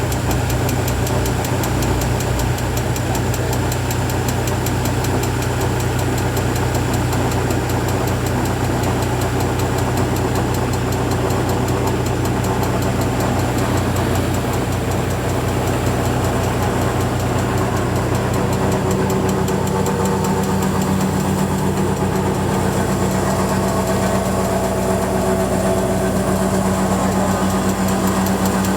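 Tractor diesel engine running steadily, driving a tractor-mounted flour mill. About two-thirds of the way through, the pitch of its low hum steps up and holds.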